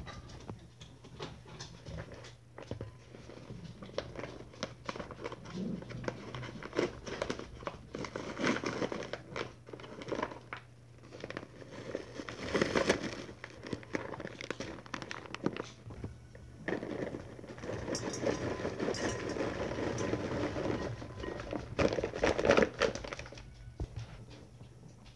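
A paper microwave-popcorn bag crinkling and being torn open over a glass bowl, then popcorn poured into the bowl. It is a long run of dry crinkling and rustling with many small clicks, loudest about halfway through and again near the end.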